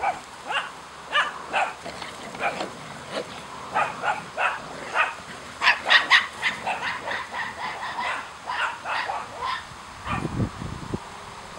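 Puppies yipping and barking in play: many short, high-pitched yips, several a second and thickest in the middle. There are a couple of low thuds near the end.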